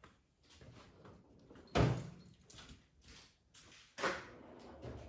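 Knocking on a TH400 transmission's oil pan to work it loose from the case: two hard knocks about two seconds apart, with lighter clatter between.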